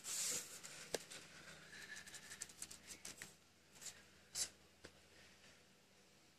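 Faint clicks and scrapes of a metal spoon stirring in a clear plastic tub, working a runny glue and baking soda slime mixture, with a quick run of small ticks in the middle and a short scrape later on.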